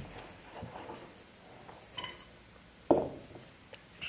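Carrots being handled and cut with a kitchen knife on a cutting board beside a stainless steel pot: a few scattered knocks and light clinks, the loudest a single sharp knock about three seconds in.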